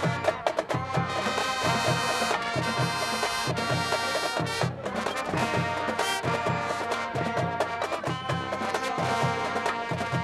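High school marching band playing: brass section holding loud chords over a steady bass-drum and drumline beat, with a brief break in the chords just before the middle.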